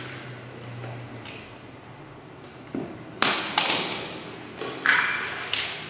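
A handful of sharp plastic clicks and taps as a surface-mounted RJ45 wall outlet is handled and worked on by hand. The loudest click comes a little past the middle, and a few more follow.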